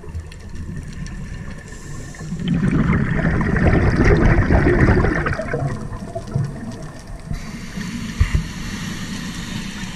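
Underwater rumble with a scuba diver's exhaled regulator bubbles gurgling in a loud rush for about three seconds, starting about two and a half seconds in.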